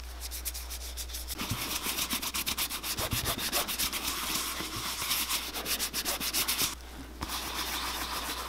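A gloved hand rubbing leather cream into an oiled-leather boot upper, a rapid run of rubbing strokes that stops for a moment about seven seconds in.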